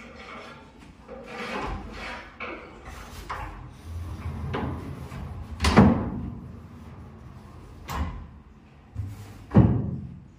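Plywood wardrobe doors rolling along a newly fitted sliding-door channel, pushed by hand: a low rumble of the rollers in the track, broken by several knocks as the doors stop against each other or the frame, the loudest about six seconds in.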